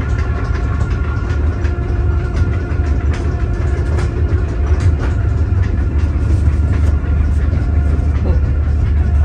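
Tour boat's engine running steadily under way, a continuous low drone.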